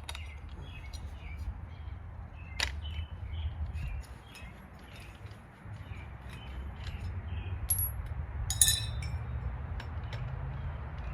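Metal clinks from a spanner wrench and grinder wheel being handled while the wheel is changed on a cordless angle grinder: a sharp click about two and a half seconds in and louder clinks near the end. Birds chirp throughout over a low rumble.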